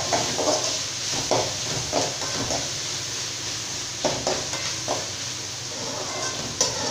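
Metal spatula scraping and stirring diced potato and onion as they sauté in oil in a metal kadai, irregular scrapes over a steady frying sizzle.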